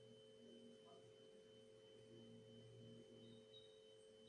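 Near silence: room tone with a faint, steady electrical hum made of several held tones.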